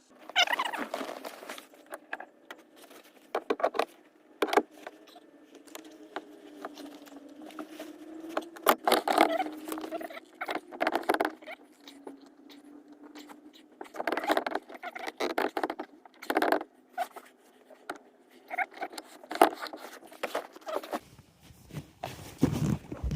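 Irregular clicks, knocks and light rattles of hardware and tools being handled during hands-on work on a boat's seat mounts.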